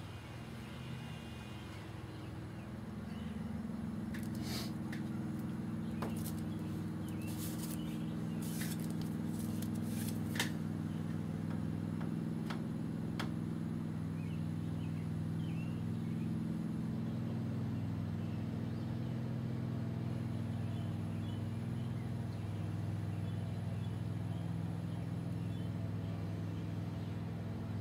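A steady low mechanical hum, like a motor running, swells about three seconds in and then holds. A few light clicks and taps fall between about four and thirteen seconds in.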